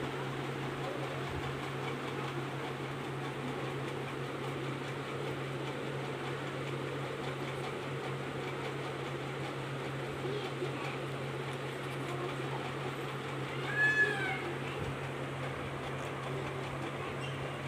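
Tabby kitten giving one short, high-pitched meow late on, over a steady low hum and hiss.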